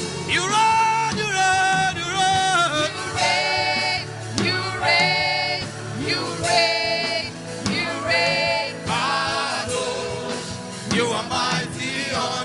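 Gospel worship singing: a voice holding long, wavering notes over a steady sustained accompaniment.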